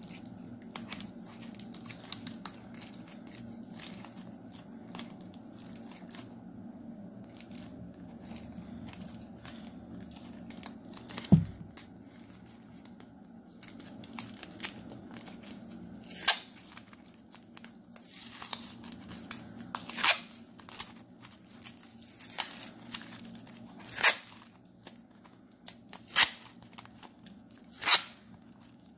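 Crumpled aluminium foil crinkling as it is pressed and shaped by hand, then a single loud thump, then masking tape ripped off its roll in strips, a sharp tear about every two seconds.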